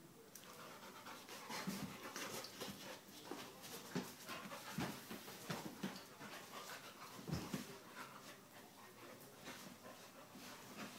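Two dogs play-wrestling: heavy, irregular panting and breathing with scuffling on a rug.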